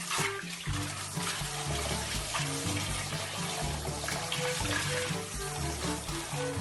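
Background music with a repeating bass line and short melody notes, over a steady rushing hiss.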